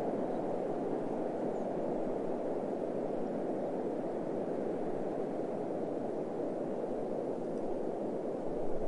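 Steady wind blowing, a low even hush with no distinct events, swelling slightly near the end.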